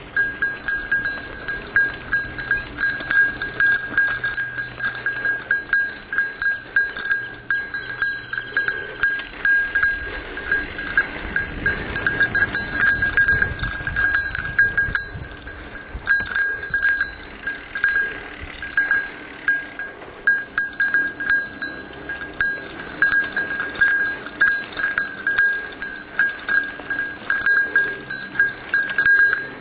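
A bicycle bell ringing over and over in quick, uneven strikes, left sounding to warn other riders of an off-leash dog. Under it is a low rumble of riding that swells for a few seconds around the middle.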